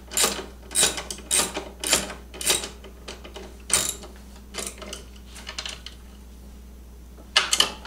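Ratchet wrench with a 10 mm socket clicking as it tightens a battery terminal bolt, in steady strokes about two a second. The strokes thin out and weaken after about three seconds, pause briefly, then a couple more sharp clicks come near the end.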